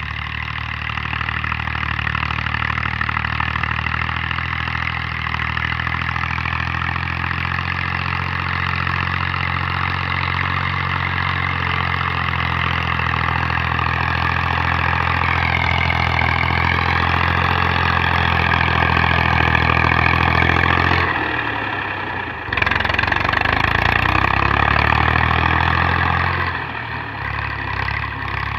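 Massey Ferguson MF 240 tractor's three-cylinder diesel engine running steadily as the tractor pushes earth with its front blade. Its pitch wavers slightly midway, and the sound drops out suddenly and briefly about three-quarters of the way through before resuming.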